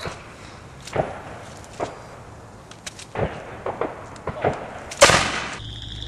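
Compressed-air lemon launcher firing once about five seconds in: a sharp bang with a short decaying tail. Several lighter knocks come before it.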